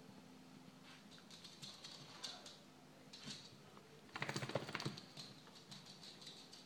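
A small dog's claws clicking and pattering on a hardwood floor as it scampers about, with a quick flurry of clicks about four seconds in.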